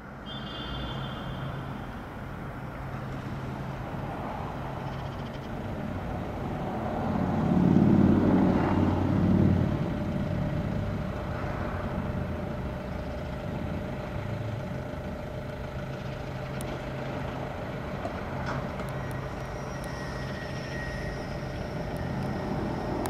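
Motor vehicle engines running with a steady low rumble. One vehicle grows louder and fades away about seven to ten seconds in.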